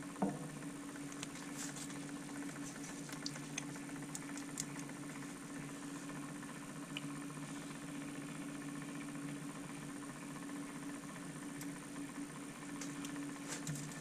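Small electric motor of a tumbler cup turner running with a steady low hum, with a few faint ticks scattered over it.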